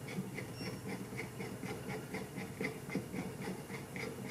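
Small hand screwdriver turning screws into the heat sink of a xenon bulb assembly: an even run of faint clicks, about four a second.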